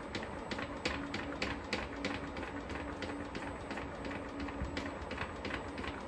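Hand pump pushing gear oil into an outboard's lower gear unit through a fill-hole adapter, clicking irregularly about two or three times a second.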